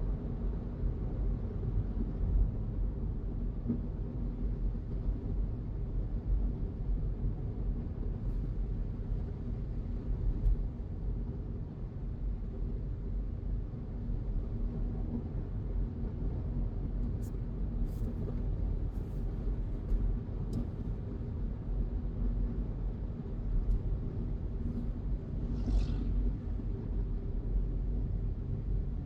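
Car driving on a road: a steady low engine and tyre rumble, with a few faint clicks in the middle and a brief higher sound a few seconds before the end.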